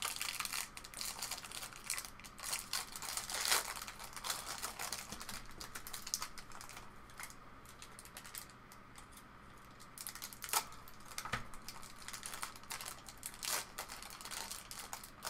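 Faint, scattered light clicks and rustling of hands handling things at a workbench, quieter for a few seconds in the middle.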